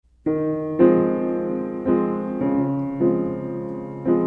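Instrumental intro of an indie rock song: a piano-like keyboard playing slow, sustained chords. It starts about a quarter second in, with a new chord struck roughly every half second to a second.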